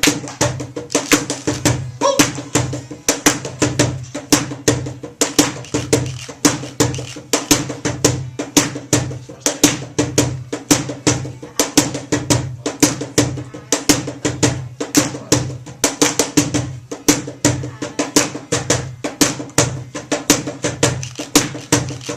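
Live band playing a steady, drum-driven R&B groove just after a count-in.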